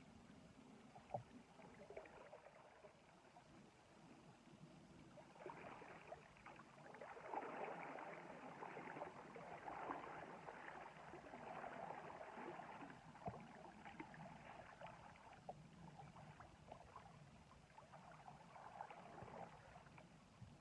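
Faint splashing and lapping of river water with small scattered clicks, swelling for several seconds in the middle and then easing off.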